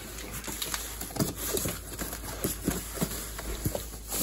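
A cardboard shipping box being shifted and handled, giving a string of about ten irregular light knocks and scrapes.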